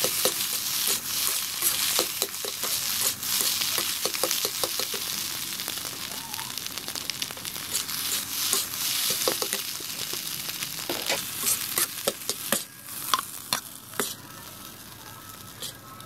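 Fried rice sizzling in a hot wok while a spatula stirs and tosses it, scraping and tapping against the pan many times over. The sizzle dies down over the last few seconds, leaving a few scattered taps.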